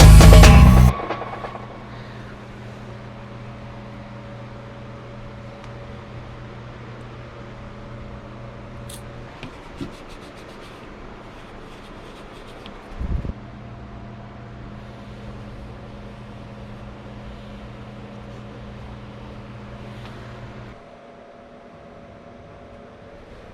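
Steady hum of a small electric motor running, with a few low fixed tones, which switches off about 21 seconds in. A single knock comes about 13 seconds in, and music ends in the first second.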